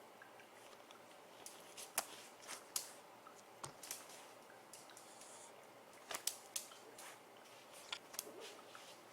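Irregular light clicks and scratches, a dozen or so scattered over several seconds, from kittens moving about and playing.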